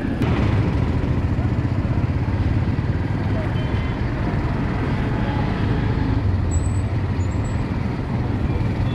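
Busy street ambience: a steady low rumble of road traffic with voices around, over oil sizzling in a large wok as fritters fry. A single sharp click just after the start.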